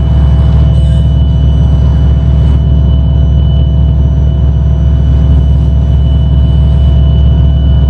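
WASP synthesizer playing a loud, steady drone, heavy in the low end, with thin high tones held above it.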